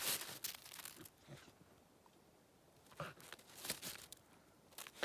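Dog pawing and digging at hard-frozen crusted snow: irregular crunching and scraping, a flurry at the start, a lull, then more crunches from about three seconds in.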